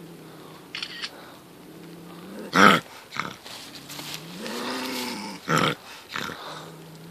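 A trapped young bobcat growling low and steadily, breaking into sharp hissing spits, the loudest about two and a half seconds in and again near five and a half seconds, with a rising-and-falling yowl between them. These are the defensive threat sounds of an angry, cornered cat.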